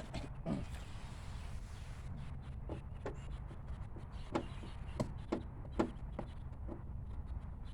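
Scattered, irregular light clicks and scrapes of a hand tool working a screw out of a car's interior door panel, with a steady low hum underneath.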